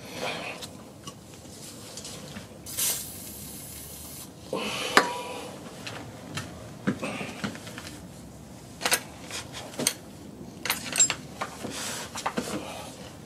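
Metal hand tools clinking and knocking as they are handled, in scattered irregular clicks, with a short hiss about three seconds in.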